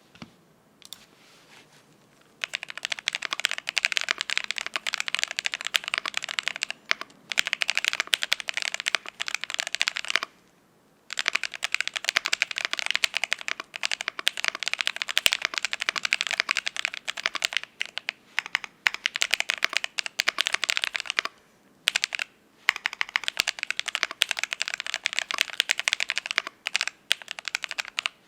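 Fast typing on a Cyberboard R3 mechanical keyboard with an aluminium plate, lubed Icy Silver switches and transparent Kelowna keycaps. It comes as runs of rapid key clacks broken by short pauses, the longest about ten seconds in.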